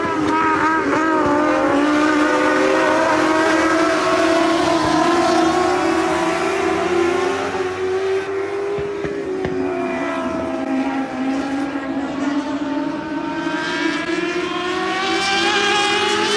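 A pack of ModLite race cars running at racing speed, their engine notes rising and falling as they go round the oval. The sound eases off through the middle as the cars run down the far side, then swells again near the end as they come past.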